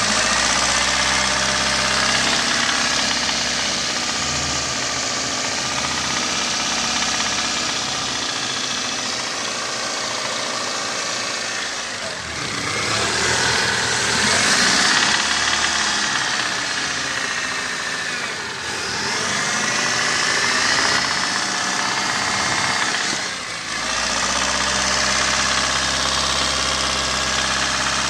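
Mitsubishi 4G15 12-valve inline-four engine idling, then revved up and held twice before settling back to idle. The owner reports a knock whenever throttle is given, cause unknown.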